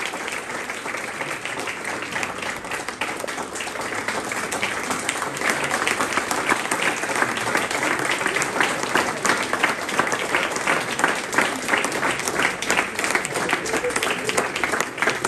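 A crowd applauding, many hands clapping at once, the clapping growing louder about five seconds in.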